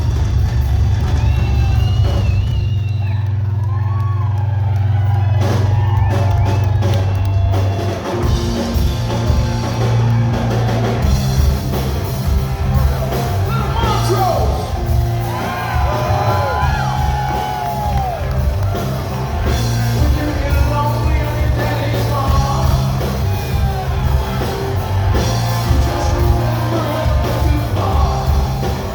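Live rock band playing at full volume with a lead vocal singing over it. A held low note sustains for the first several seconds, then the beat drives in about eight seconds in.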